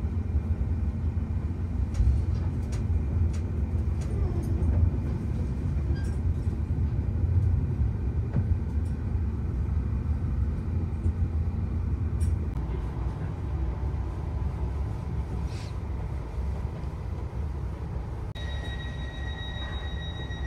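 Passenger train running along the track, heard from inside the carriage: a steady low rumble with occasional light clicks. About two-thirds of the way through the rumble eases, and near the end a steady high-pitched tone sets in.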